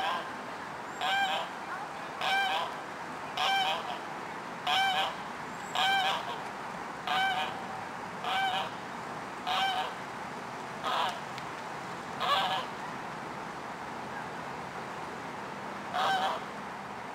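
A goose honking over and over, about one honk a second, then pausing and giving one more honk near the end.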